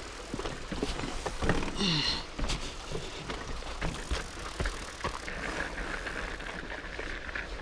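Fat bike ridden over a rough dirt trail: the tyres roll over the ground while the frame and parts rattle and knock again and again, with a brief high squeak about two seconds in.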